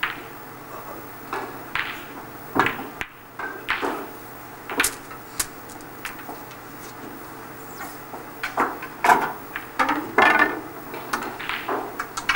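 Snooker shot being played: the cue tip strikes the cue ball right at the start, followed by sharp clicks of ball on ball and a red knocked into a pocket. Later come a cluster of wooden clacks as the next shot is set up with the rest. A steady low hum runs underneath.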